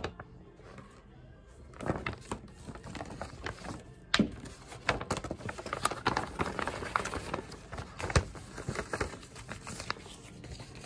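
Stiff paper rustling and crackling as a large fold-out poster is folded up and a paper booklet is handled, with sharp crackles about four and eight seconds in.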